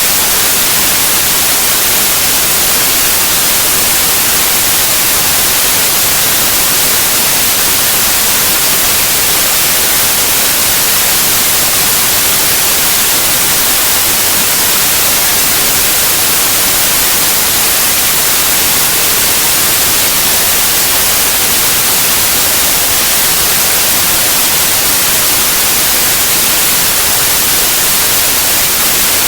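Loud, steady white noise: an even hiss with no tones or changes in it.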